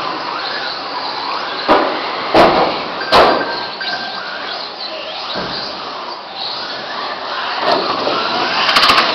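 Radio-controlled touring cars racing, their motors rising and falling in pitch as they pass. Several sharp knocks come between about one and a half and three seconds in, with more near the end.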